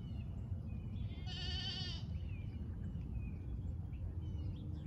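A goat bleats once, a wavering, quavering call lasting under a second, over a steady low background rumble.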